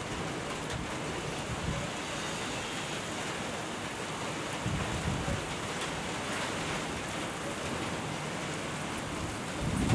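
Steady rain falling. A low rumble of thunder comes about halfway through, and another begins to build near the end.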